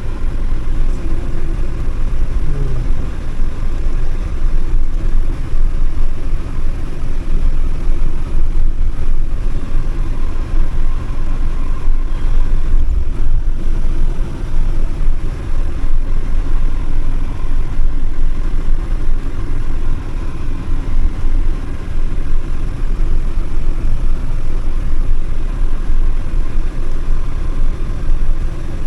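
Steady road and engine noise of a campervan being driven, a continuous low rumble heard from inside the cab.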